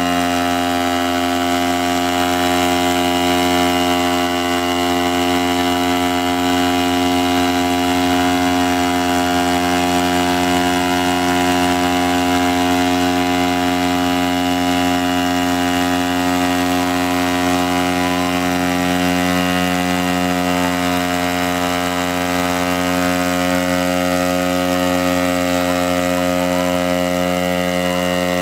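Gas-engine hybrid multirotor hovering: its 60 cc petrol engine and spinning propellers make a loud, steady drone that holds one pitch.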